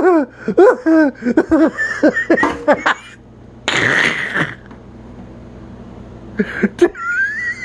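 A person laughing in short repeated bursts. About four seconds in there is a loud rough burst about a second long, and near the end a brief rising squeak.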